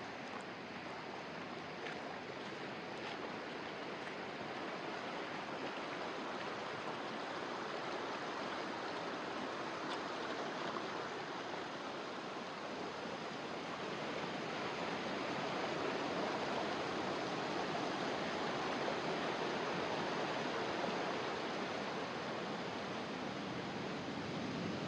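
A creek's running water rushing steadily. It grows a little louder about halfway through.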